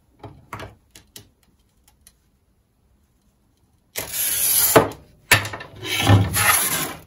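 Wheel glass cutter scoring a line across a mirrored glass tile, a loud, scratchy hiss of a little under a second about four seconds in. A sharp click follows, then more scraping of glass for about a second and a half.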